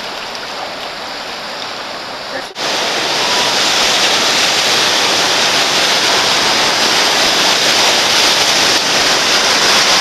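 Whitewater rapids of a mountain river rushing steadily. About two and a half seconds in, the sound cuts to a louder, brighter roar of the rapid heard from a raft in the middle of the whitewater.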